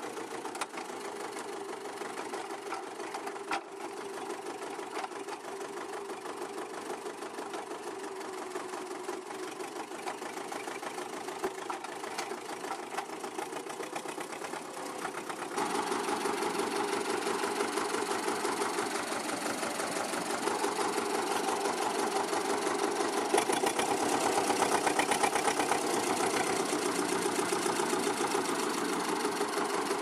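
Small hatchback's engine running steadily at low revs, idling and creeping along at walking pace. It gets louder about halfway through.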